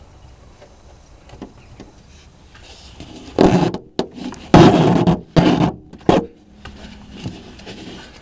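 Ratchet strap being pulled tight: the webbing is drawn hard through the ratchet buckle in four loud rasping pulls, between about three and six seconds in, with light handling knocks before and after.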